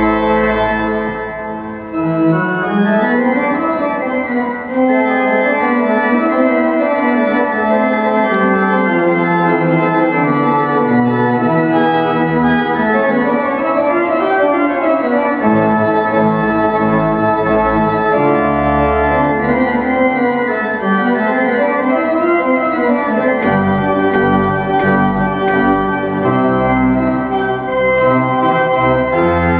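Pipe organ played: full sustained chords over a moving lower line, with deep pedal notes sounding on and off in the second half.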